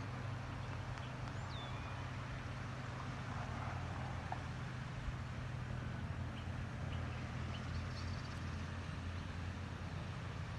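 Steady rushing of floodwater flowing down a swollen wadi, an even noise with a low rumble underneath, with a few faint high chirps about a second in and again later.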